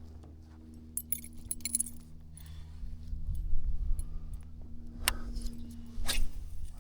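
A steady low mechanical hum with light metallic jingling and clinking about a second in, and two sharp knocks near the end.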